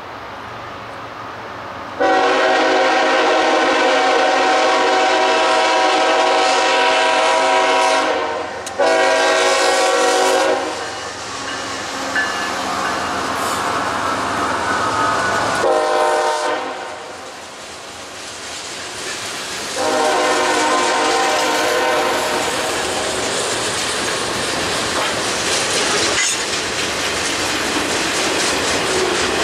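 CSX freight train's diesel locomotive horn sounding loud blasts: two long, a short one, then another long, the long-long-short-long grade-crossing signal. The locomotives and boxcars then clatter past on the rails.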